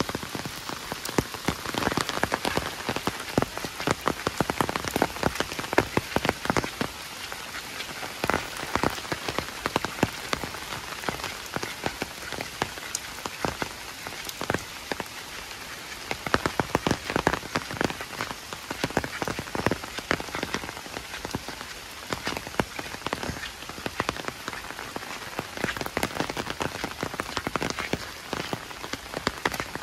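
Heavy rain falling, with a dense, unbroken stream of close, sharp drop impacts over a steady hiss.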